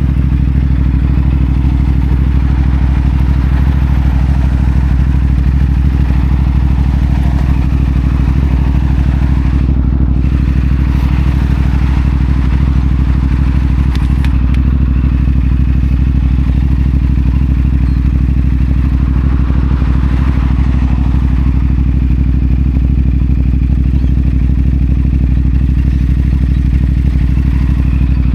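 CFMoto 450SR's parallel-twin engine idling steadily through a Yoshimura AT2 slip-on exhaust, its pitch holding constant.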